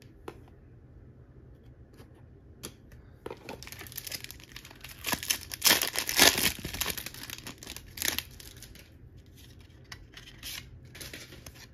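A trading card pack's wrapper being torn open and crinkled by hand: the crackling tearing starts about three seconds in, is loudest near the middle and settles into lighter rustling after about eight seconds.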